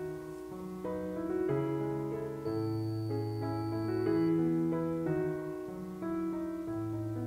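Background music: a piano piece with held bass notes under a slow melody, the notes changing about once a second.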